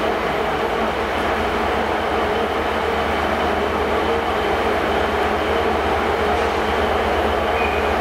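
Class 67 diesel locomotive's two-stroke V12 engine running at a steady idle, a constant low hum.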